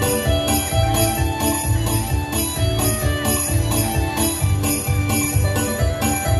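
Dance music with a steady beat: jingling percussion sounding about twice a second over a pulsing bass and a sustained melody.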